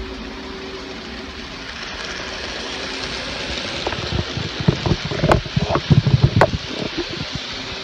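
N-scale model train rolling along the track with a steady whir, a faint hum under it. As the coaches pass close by in the second half, it gets louder, with a quick run of sharp clicks from the wheels over rail joints.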